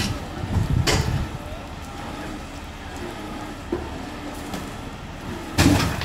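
Crane tow truck engine running steadily, a low rumble, with two short rushing bursts of noise, about a second in and near the end.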